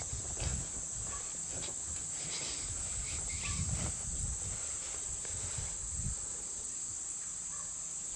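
Steady high-pitched chorus of crickets, with soft, irregular low thumps of footsteps in grass.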